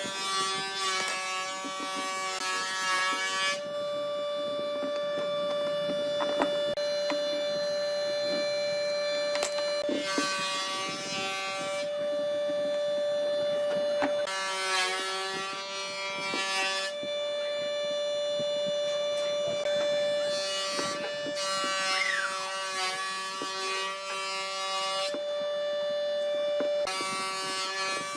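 Electric power tool whining steadily. In several stretches of a few seconds it turns harsher, with a hissing rasp added, as it works into the wood.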